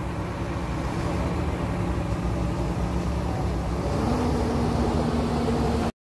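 Diesel engines of a tracked excavator and a dump truck running steadily; the engine tone steps up slightly about four seconds in. The sound cuts off suddenly just before the end.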